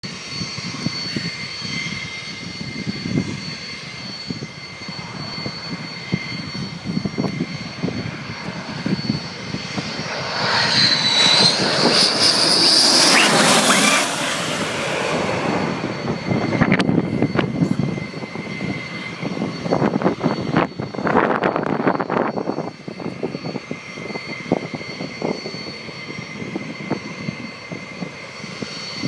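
McDonnell Douglas F-15's twin Pratt & Whitney F100 turbofans on landing approach: a steady jet whine that swells as the jet passes low overhead about ten to fourteen seconds in. A high whine drops in pitch as it goes by, then the noise falls back to a lower rumble.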